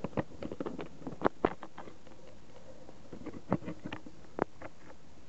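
Land Rover Freelander subframe mount creaking and cracking: a string of irregular sharp cracks and short creaks, loudest about a second and a half in. Such creaking and cracking when pulling off or manoeuvring at full lock can come from a worn subframe mount.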